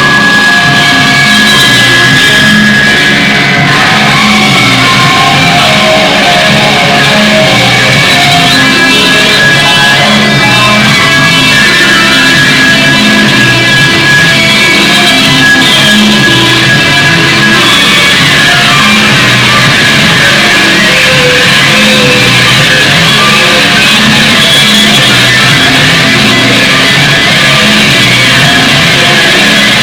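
Loud rock music led by guitar, dense and continuous.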